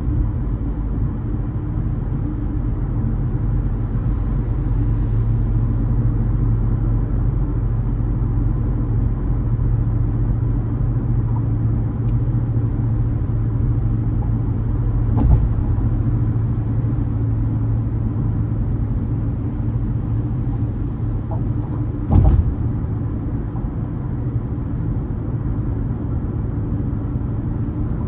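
Steady low rumble of a car driving along, engine and road noise, broken by two short thumps, about halfway through and again some seven seconds later.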